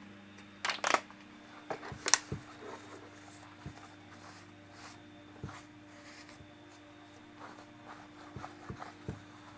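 Light clicks and knocks of metal motorcycle engine parts being handled on a workbench, with two short rubbing or scraping sounds about one and two seconds in.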